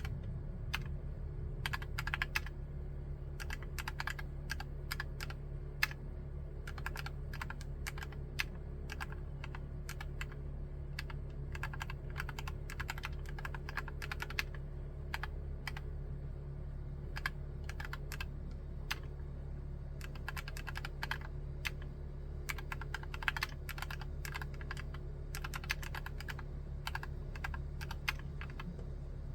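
Typing on a Drop + OLKB Preonic ortholinear mechanical keyboard with Gateron Black linear switches: irregular runs of quick keystrokes over a steady low hum.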